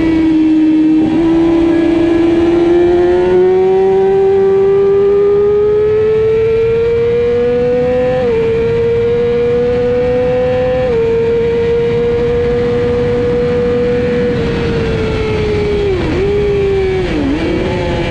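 Middleweight supersport motorcycle engine heard onboard at racing speed: the revs climb steadily, with two brief dips about eight and eleven seconds in as the rider shifts up. Near the end the revs fall away and two quick dips and blips come as the rider shifts down, all over a rush of wind noise.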